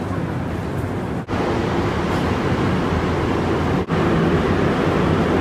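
Subway train noise from inside the carriage: a steady rumble with a low hum, broken by two brief drop-outs, about a second in and near four seconds in.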